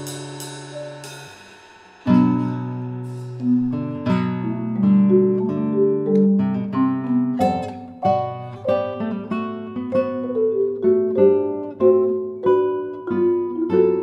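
Classical guitar and marimba playing a contemporary chamber duo. Ringing notes die away to a near pause at about two seconds, then a steady run of plucked and mallet-struck notes starts up and continues.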